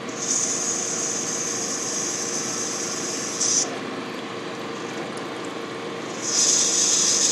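CNC gang-tool lathe boring brass valve bodies: a steady machine hum with a high hiss. The hiss cuts out about three and a half seconds in and comes back about a second before the end.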